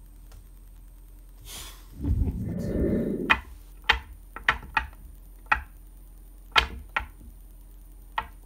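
Kururin flip sticks knocking down on a hard tabletop: a scuffing of handling about two seconds in, then a string of about eight sharp, separate clacks as the sticks are flipped and landed.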